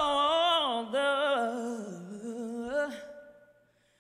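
A woman's solo singing voice holding slow, wavering notes into a microphone, with a short break before one second in, then a phrase that falls in pitch and dies away about three seconds in.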